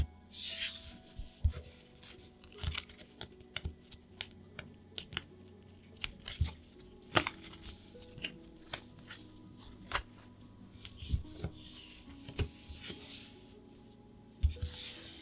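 Plastic card-sleeve packaging being handled and opened: crinkling and rustling plastic with light clicks and taps, over soft background music.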